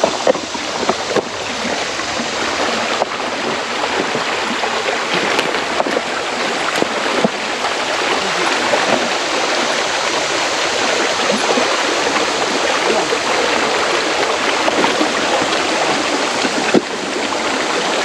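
Creek water rushing steadily over a rocky riffle, with a few faint clicks scattered through it.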